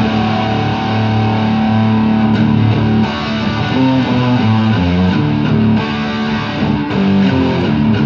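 Line 6 Variax Standard modelling guitar played through a Blackstar ID:Core digital amp, a riff of held low notes and chords in drop D tuning.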